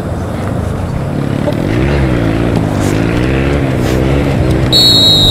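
A motor vehicle engine passing over a steady low rumble, rising in from about two seconds in, its pitch wavering up and down. Near the end a short high-pitched beep sounds.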